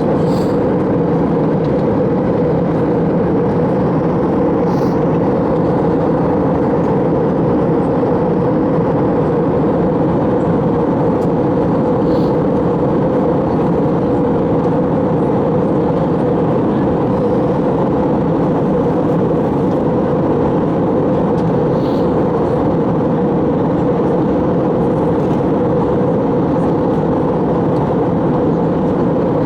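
Steady drone of engines and rushing air inside the cabin of an Airbus A321 descending toward landing, strongest in a midrange hum.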